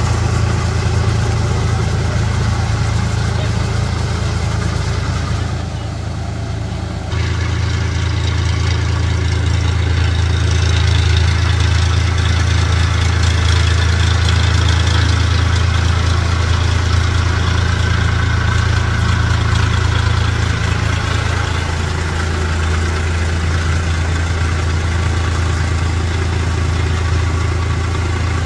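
Swaraj 963 FE tractor's three-cylinder diesel engine running steadily under load while its rear rotary tiller churns through the mud and water of a flooded paddy field. The drone goes quieter for a moment around six seconds in, then comes back louder.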